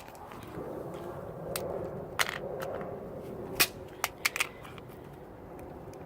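Plastic flip phone being cracked apart by hand: a run of sharp snaps and clicks, about six, the last three close together, over rustling handling noise.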